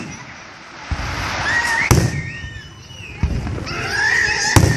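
Aerial fireworks shells bursting overhead: a lighter boom about a second in, then sharp booms at about two seconds and near the end.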